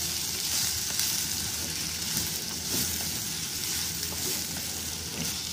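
Chopped onions, garlic and green chili sizzling in hot oil in a clay pot as a spatula stirs them, a steady frying hiss during light sautéing of the onions.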